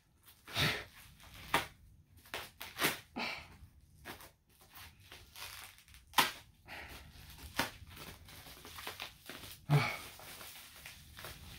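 Wrapping paper and packing material being torn and crumpled by hand in irregular rustling bursts with sharp crinkles, as a tightly wrapped package is worked open.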